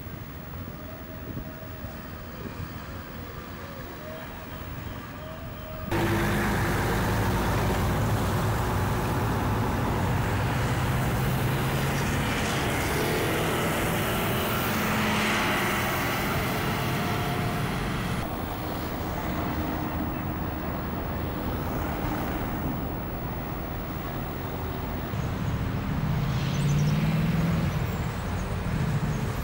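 Busy city street traffic: cars and buses running and passing in a steady rumble. It starts suddenly about six seconds in, after quieter open-air ambience, and eases a little in the later part.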